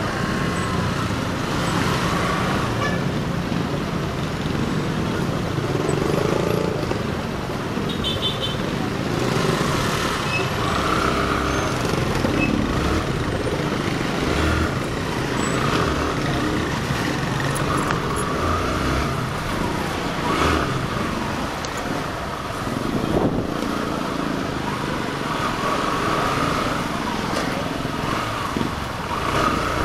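Motorcycle riding through busy street traffic: its own engine running at a steady level among the engines of passing motorcycles, motorcycle tricycles and jeepneys.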